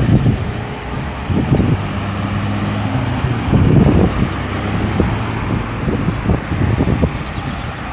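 Road traffic around a busy roundabout: car and truck engines running and passing, with a steady low engine hum. A few brief high chirps come near the end.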